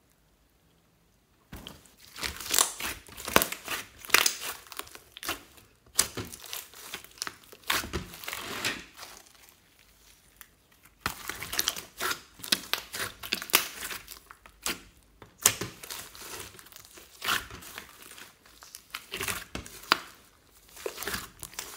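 Slime full of small foam beads being stretched, folded and squeezed by hand, giving repeated bursts of crackling and popping. It starts about a second and a half in and comes in clusters with short pauses.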